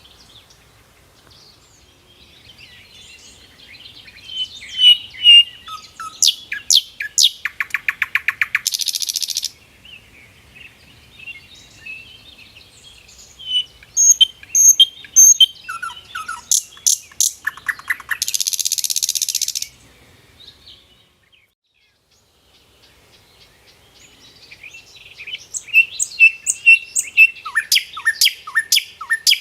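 Songbird singing in three bursts of high chirps and rapid trills. The first two bursts each end in a harsh hiss lasting over a second.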